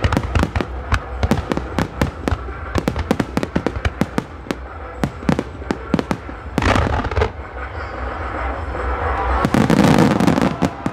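Fireworks display: many shells bursting and crackling in quick succession, sharp bangs one after another. About a second before the end it swells into a loud, dense volley of bursts.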